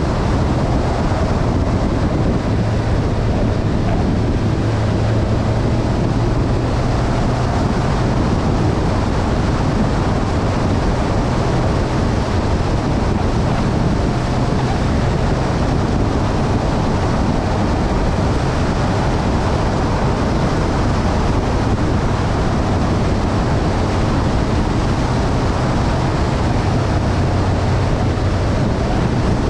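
Motorcycle engine running at a steady cruise, its low note holding even under heavy wind rush buffeting the action camera's microphone.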